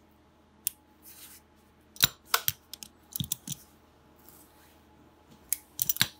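Sharp clicks and snaps of small hand tools handling optical fibre during preparation for a fusion splice, irregularly spaced with a cluster near the end, and a brief scrape about a second in.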